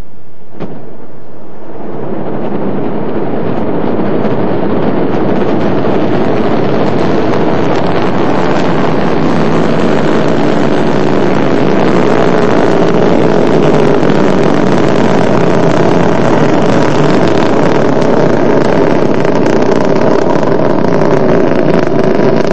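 Ariane 5 ES rocket lifting off: the loud, steady noise of its two solid rocket boosters and Vulcain main engine, swelling in over the first couple of seconds and then holding on without a break.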